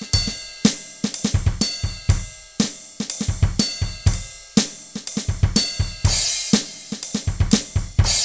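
Electronic drum kit played in a steady beat: bass drum, snare, hi-hat and cymbal hits, about two main strokes a second with quicker hits between.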